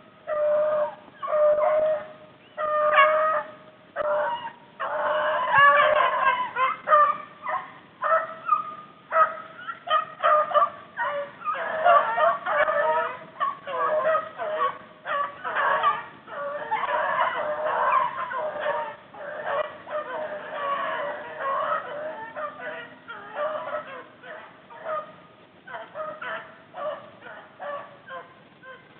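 A pack of rabbit hounds baying while running a rabbit: one dog's repeated bays at first, then several dogs giving tongue together from about five seconds in, thinning out near the end.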